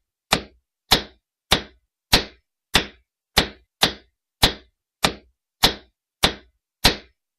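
Rhythmic chopping on wood: a small hand tool striking a sapling's trunk about a dozen times, one sharp whack every 0.6 s or so, each with a short ringing tail.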